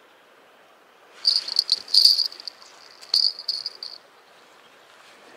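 Bite alarm on a ledger rod ringing in quick, irregular jingling shakes for about three seconds, starting about a second in: fish pulling at the bait, which the angler puts down to small fish pecking and setting off false alarms.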